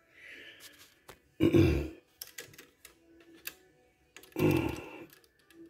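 Marantz SD-800 cassette deck's transport mechanism being operated: scattered sharp clicks, with two louder thumps about three seconds apart.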